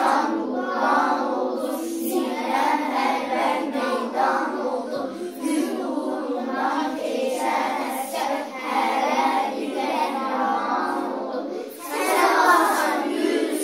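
A group of young children singing a song together in chorus, growing louder near the end after a brief dip.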